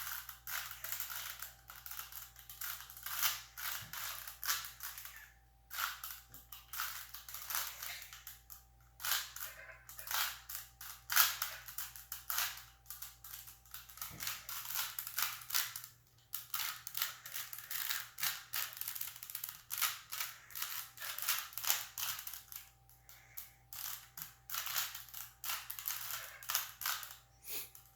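Rubik's Cube being turned fast by hand: a rapid, uneven run of plastic clicks and rattles as the layers twist, with a few short pauses between sequences of moves.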